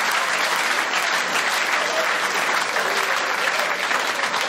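A comedy club audience applauding and laughing at a punchline, with dense, steady clapping.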